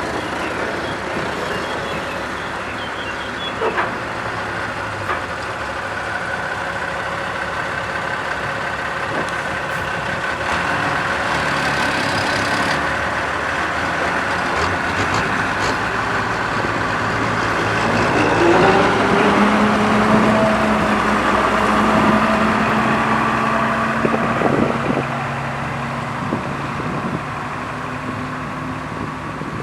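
Diesel engine of a road roller running on asphalt paving work. Its pitch rises about two-thirds of the way through, and the run is loudest for a few seconds after that before settling again.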